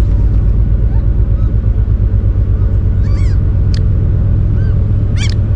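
Gulls calling overhead: short arched cries, a cluster about three seconds in and a loud one near the end, over a steady low pulsing rumble.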